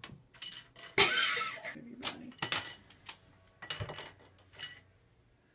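A cat batting a small plastic razor cover around the floor of an empty bathtub: a run of scrapes and clicks of claws and plastic on the tub, the loudest about a second in.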